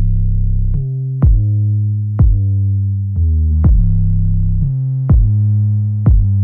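Background electronic music: a deep drum-machine kick every second or so over held synthesizer bass notes.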